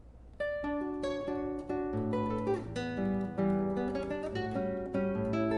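Solo acoustic guitar playing a Brazilian choro. Plucked treble notes start about half a second in, and a bass line joins them about two seconds in.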